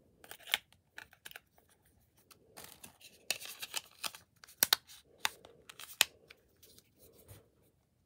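A small plastic feature phone being put together by hand: its battery set in and its plastic back cover pressed down and snapped into place. A run of sharp plastic clicks and rattles, thickest just after the midpoint, with the loudest snaps about four and a half and six seconds in.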